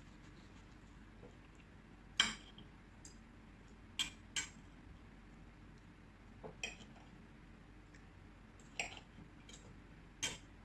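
Cutlery clinking and scraping against a plate as steak and egg are eaten: about six short, sharp clinks at irregular intervals, the loudest about two seconds in.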